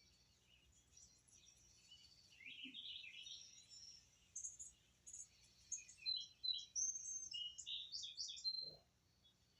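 Small birds chirping and twittering faintly, with a busier run of quick high notes in the second half.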